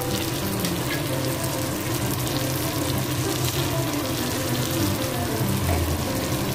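Oil sizzling steadily in a kadai as stuffed brinjals fry under a heap of masala paste, with background music playing underneath.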